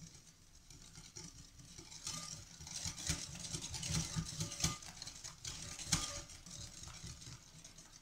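Wire whisk beating eggs and sugar in a glass bowl: a rapid, continuous swishing and clicking of the wires against the glass, with a few sharper clinks.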